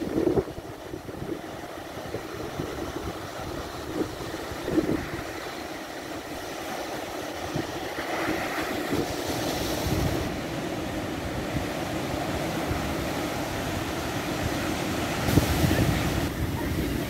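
Sea waves washing onto the shore, swelling louder about eight seconds in and again near the end, with wind buffeting the microphone.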